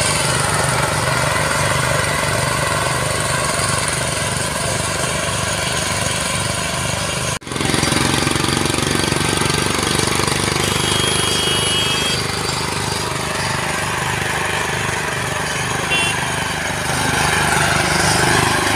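Two power tillers' engines running steadily with an even low chugging beat while the tillers cultivate soil between crop rows. The sound drops out for an instant about seven seconds in and grows a little louder near the end.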